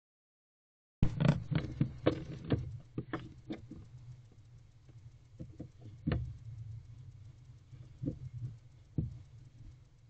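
Barn owl moving around inside a wooden nest box, its feet and body knocking and scuffing on the box and floor litter: a quick run of knocks in the first few seconds, then scattered single knocks, over a steady low hum.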